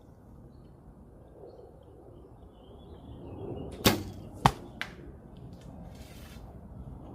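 An arrow shot from a bow: a sharp snap of the string on release, then about half a second later a loud smack as the arrow strikes the target, with a lighter knock just after.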